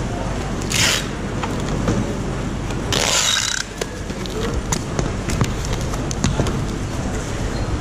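Packing tape being pulled off a hand-held tape dispenser: a short rip about a second in and a louder, longer one at about three seconds. It is followed by scattered light clicks and knocks as the gift boxes are handled, over a steady background hum.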